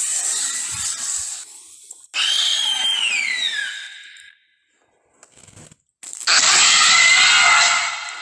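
Film velociraptor vocal sound effects: harsh, raspy screeches. A screech fades out early, another slides down in pitch about two seconds in, and a longer, louder rasping screech comes about six seconds in.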